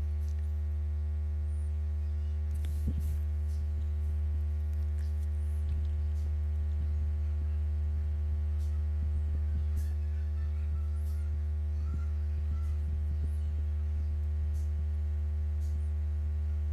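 Steady electrical mains hum with a stack of even overtones, picked up by the recording microphone, with a few faint clicks scattered through it.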